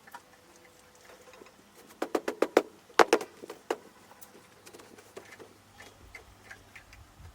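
A quick run of sharp clicks and knocks, from small hard objects being handled and set down while clearing a room, loudest about three seconds in. A faint steady hum runs underneath.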